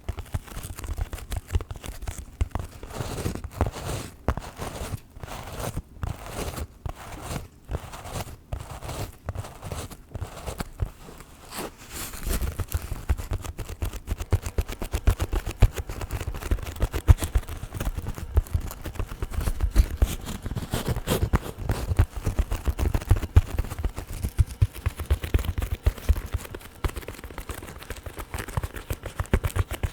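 Long fingernails scratching and rubbing directly on a microphone, close-up and scratchy. About twelve seconds in it changes to a denser, heavier rubbing and tapping with more low thuds.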